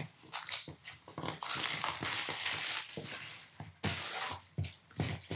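Cardboard iPad mini retail box being opened by hand: a long rasping tear of its paper seal strip about a second and a half in, with short knocks of the box handled and set on the table.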